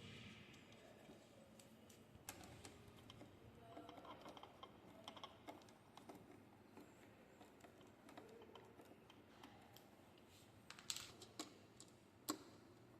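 Faint, scattered small clicks and ticks of screws being fitted and turned into a swivel mount with a screwdriver, with a few sharper clicks near the end.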